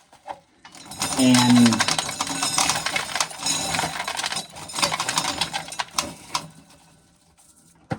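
Dried corn kernels being shelled off the cob, rattling and clattering into a container in a dense run of small clicks that dies away after about six seconds.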